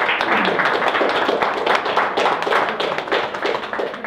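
Audience applauding: many people clapping at once in a dense, steady patter that begins to fade near the end.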